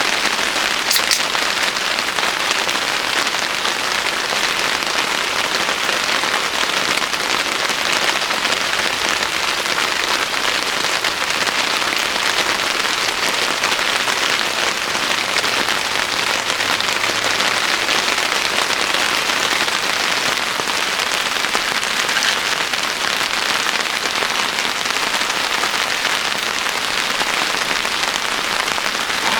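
Steady rain falling, an even hiss that keeps the same level throughout, with a few sharper drop ticks.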